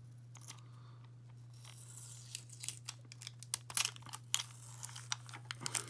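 Crinkling and sharp clicking of small plastic pieces being handled in the fingers, a miniature plastic dollhouse vanity. It starts about two seconds in and gets busier toward the end, over a steady low hum.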